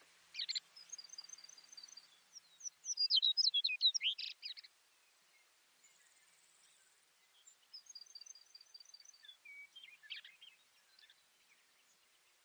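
Baird's sparrow singing two songs, each a run of short, evenly spaced high notes leading into a louder rapid trill. The first song is the louder; the second comes about halfway through.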